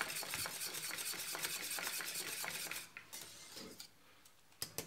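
A wire whisk beats thick cornmeal porridge in a stainless steel saucepan, with rapid wet stirring strokes and the wires clicking against the pot. The fast whisking stops about three seconds in, and after that only a few light clicks are heard.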